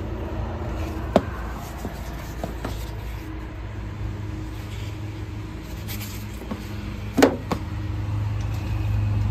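A few sharp clicks and taps of handling as a foam strip is cut with a utility knife and set onto a window air conditioner, the loudest about a second in and a pair about seven seconds in, over a steady low hum.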